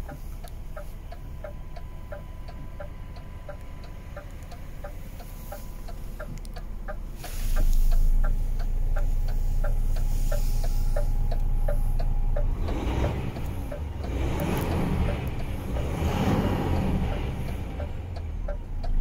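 Steady ticking in a DAF XF 480 truck cab, about two to three ticks a second, until about twelve seconds in. About seven seconds in the truck's diesel engine starts and settles into a low idle rumble, and from about twelve seconds a louder rushing noise swells and fades twice over it.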